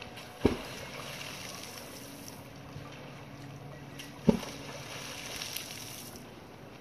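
Dolphin slapping its tail hard on the water surface twice, about four seconds apart: two sharp smacks over a steady wash of water and wind. The slaps make a concussion that stuns fish for the dolphin to circle back and catch.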